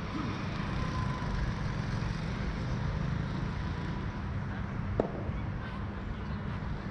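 Steady low rumble of background noise, with a single sharp knock about five seconds in.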